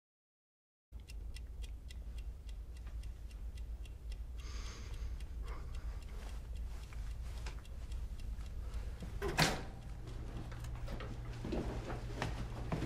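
A steady low hum of room tone starts about a second in, with a clock ticking evenly over it. A louder single knock or scrape comes about nine seconds in.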